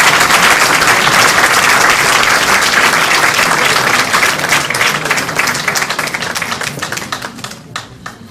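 Audience applauding: dense clapping that thins out and fades over the last few seconds, ending in a few scattered single claps.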